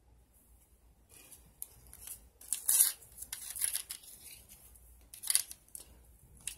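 A knife cutting and prying at a plastic blister pack of batteries: short scratchy crackles of plastic, the loudest a little under three seconds in and another about five seconds in.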